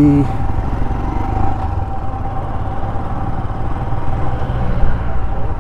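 Royal Enfield motorcycle running along the road: a steady low rumble with a thin steady tone over it.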